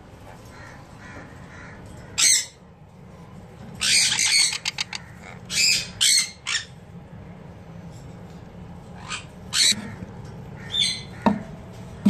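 Sun conure giving short, harsh, high screeching squawks at irregular intervals, several in quick succession around the middle.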